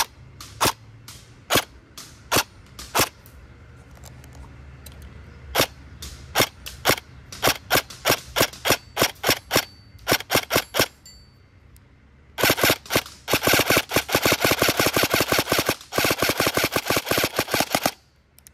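Electric airsoft gun firing: single shots about a second apart, then a quicker string of shots, a short pause, and a fast rapid string that stops near the end.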